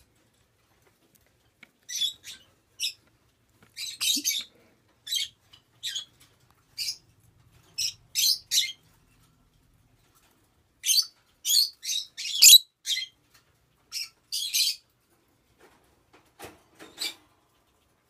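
Peach-faced lovebird chirping: short, high-pitched chirps, singly or in quick pairs, about twenty in all, with a pause of a second or so in the middle.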